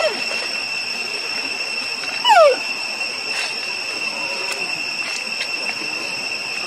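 A steady high-pitched tone. About two seconds in, a short animal call that falls sharply in pitch, the loudest sound, with a fainter falling call at the very start.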